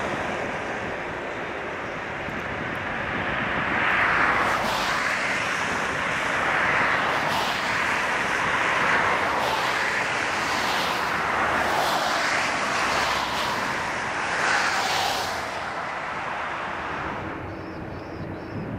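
Jet engines of a Boeing 787-9 on the runway, heard from a distance as a steady rush of noise. The noise swells about four seconds in, pulses unevenly, then eases off near the end.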